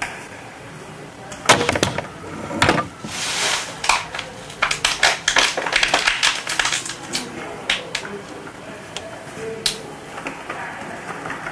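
Recyclable household waste being handled and struck: a rapid, irregular run of sharp clicks, knocks and rattles with short stretches of crinkling. It starts about a second and a half in, is busiest in the middle and thins out toward the end.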